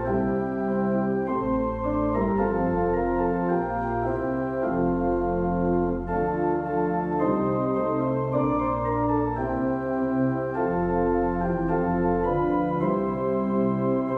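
Organ playing a hymn: held chords moving from one to the next about every second.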